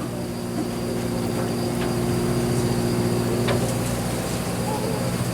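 A boat's engine running at a steady hum, with a higher tone that stops about three and a half seconds in and a few faint ticks.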